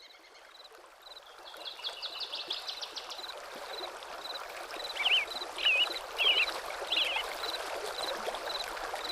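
Running stream water with birdsong over it: a short high chirp repeating about twice a second, a quick run of chirps about two seconds in, and loud warbling phrases around five to seven seconds in.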